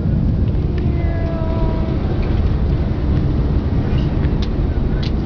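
Cabin noise of a small private jet rolling down the runway just after touchdown: a loud, steady low rumble, with a faint brief whine about a second in.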